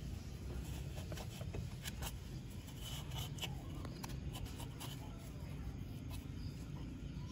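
Faint rubbing and scraping of a cloth rag wiping rust and dirt off a motorcycle's stator coils and magneto housing, with scattered small clicks, over a steady low hum.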